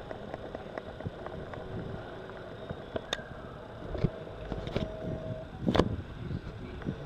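Outdoor background rumble with a few sharp clicks and knocks, and a brief steady hum a little after halfway.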